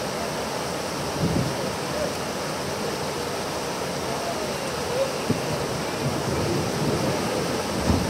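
River water rushing steadily over a low weir, with a few short low thumps scattered through it.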